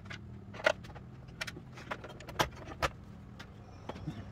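Screwdriver and plastic trim of a Jeep Cherokee's lower dash panel clicking and clacking as the panel's screws are backed out and the panel is worked loose: a handful of sharp, irregular clicks, the loudest near the end, over a steady low hum.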